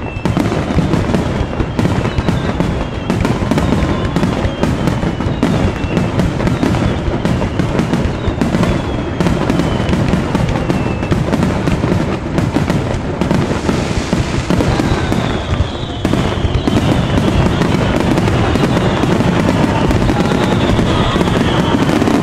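Fireworks finale: aerial shells launched and bursting in rapid succession, a loud, near-continuous barrage of bangs. Thin high whistles slide down in pitch over it several times.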